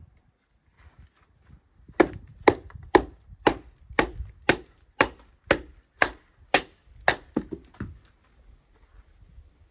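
Batoning: a wooden baton knocking on the spine of a large fixed-blade knife to split a green branch on a stump, about two sharp knocks a second for some six seconds, starting about two seconds in.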